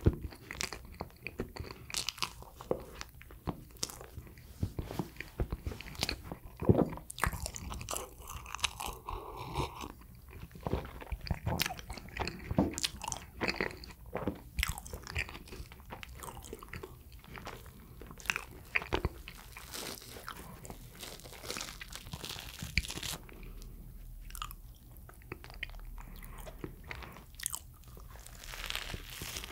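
A person biting and chewing sweet bread: a continuous, irregular run of small mouth clicks and chewing noises.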